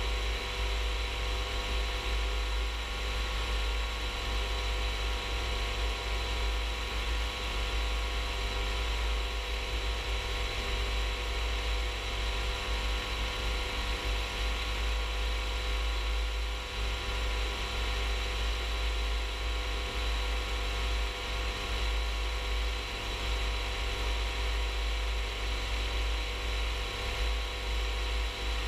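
Rans S-14 light aircraft's engine and propeller droning steadily in flight, with a heavy low rumble of wind over the externally mounted camera.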